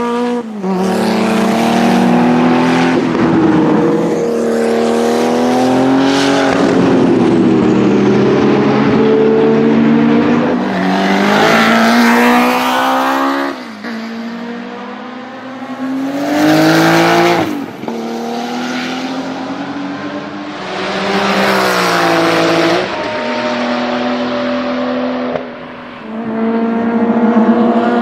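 Porsche 935 Kremer race car's turbocharged flat-six engine running hard. Its note repeatedly climbs and then drops sharply, with loud surges about halfway through and again a few seconds later.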